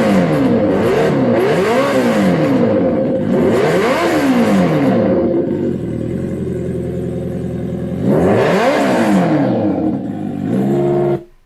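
Kawasaki sport motorcycle engine being revved in quick repeated blips, its pitch rising and falling sharply, then settling to a steady idle for a few seconds before one more rev; the sound cuts off suddenly near the end.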